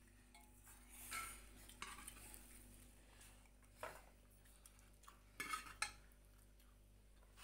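A spoon clinking and scraping against steel dishes and pots, a few faint separate touches with a louder quick cluster near the end.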